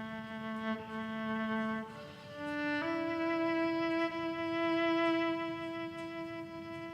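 A violin playing a slow melody of long, sustained bowed notes. A lower note gives way after about two seconds to a short step upward, then a higher note is held for about four seconds.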